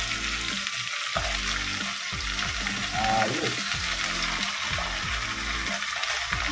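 Chicken wings frying in hot oil in a thin pan with onion, garlic and ginger: a steady, dense sizzle as the freshly added raw meat sears.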